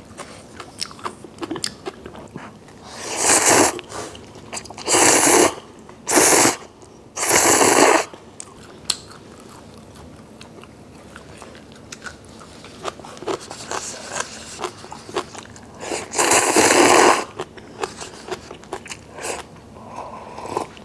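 Loud slurps while eating cup ramen: four in quick succession a few seconds in and one more near the end. Between them come small clicks of chewing and crunching kimchi.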